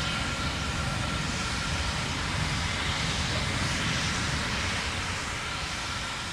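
Steady rumbling noise of Terran 1's first stage in flight, its nine Aeon 1 methane-oxygen engines heard from the ground, easing slightly near the end.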